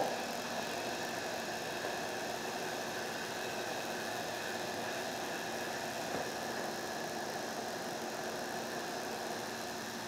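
Steady mechanical hum with an even hiss of air from a powder coating setup: shop machinery running while a hand-held powder coating gun sprays powder at low air pressure.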